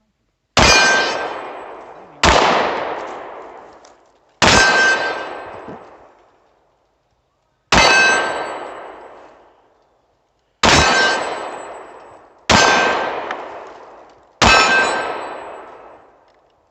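Seven handgun shots at an uneven pace, each hitting a steel target that rings out and fades over about two seconds.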